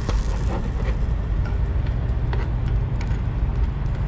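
Steady low rumble of a vehicle engine, with a few light clinks of a metal spoon against a cooking pot.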